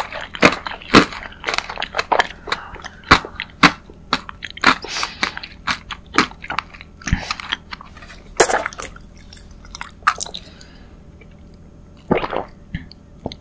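Close-miked chewing of a crunchy dessert, with sharp crunches every fraction of a second for about ten seconds that then fade. Near the end comes a short gulp from a small drink bottle.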